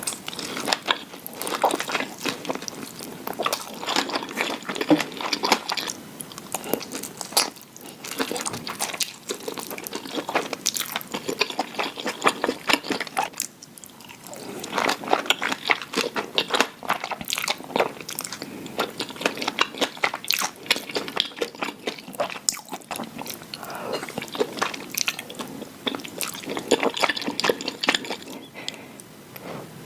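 Close-miked mukbang eating sounds: a person biting and chewing Korean rice cake, with a dense run of small mouth clicks and a brief lull about halfway through.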